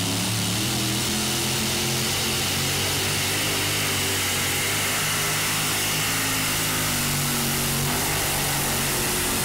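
Modified pulling tractor's engine running steadily at a fast idle while the tractor moves up to hook to the sled, its pitch wavering slightly.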